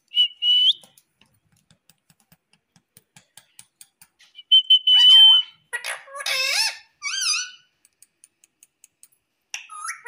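Indian ringneck parakeet calling: a short high whistle at the start and a longer, loud steady whistle about five seconds in, followed by a run of chattering, gliding squawks. Between the calls there is a string of faint, quick ticks, about four or five a second.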